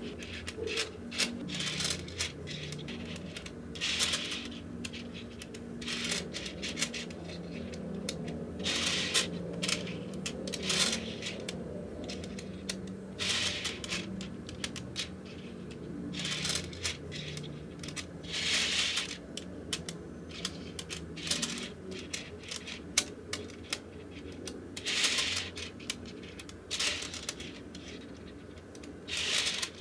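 Small magnetic balls clicking as they snap onto one another, with irregular single clicks and short rattling runs of several balls snapping in quick succession every few seconds.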